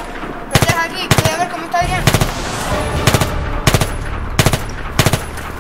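Automatic rifle fire: about seven short bursts of two to four rapid shots each, spaced roughly half a second to a second apart.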